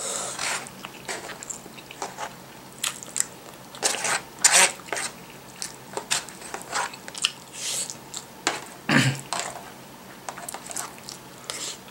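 Close-up chewing of a mouthful of breaded pork cutlet curry: irregular crunches of the breading and wet mouth sounds, with one stronger, deeper sound about nine seconds in.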